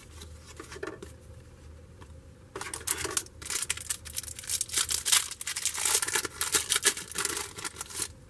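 Paper trading-card pack wrapper being torn open and crinkled: after a little light handling, a long run of dense crackling starts about two and a half seconds in.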